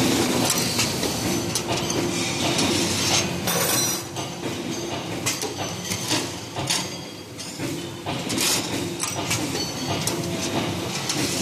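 2D CNC wire bending machine working a steel rod through its bends: a steady motor hum, metal clicks and clinks from the bending head, and several short bursts of hiss.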